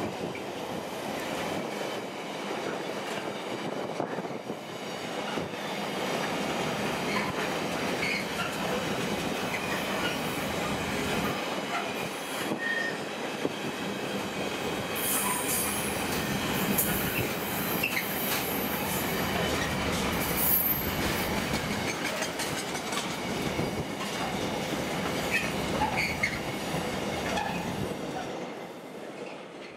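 Container wagons of a long intermodal freight train rolling past, a steady rumble and clatter of wheels on rail, with brief high wheel squeals about halfway through. The sound dies away near the end as the last wagon clears.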